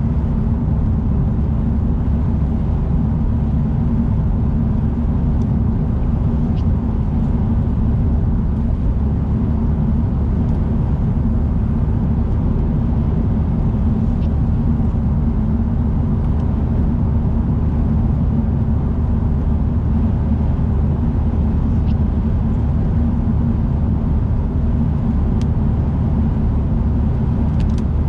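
Steady low rumble of a car driving at speed on an expressway: road and engine noise with no change, and a few faint, scattered ticks.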